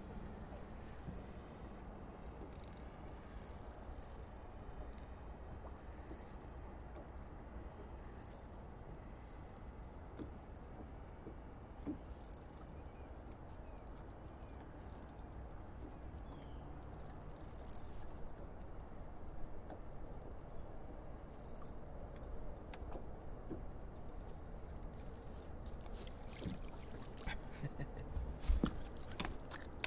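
Fishing reel ticking and clicking while a bass is fought on the rod. In the last few seconds come louder knocks and rattles as the fish is swung aboard onto the boat deck.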